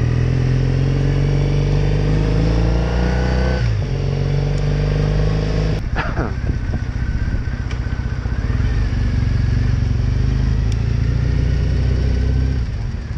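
Triumph Bonneville T100's parallel-twin engine pulling up through the revs under acceleration, dropping at a gear change about three and a half seconds in and rising again. After a sharp click about six seconds in, it settles to steady cruising with wind rush.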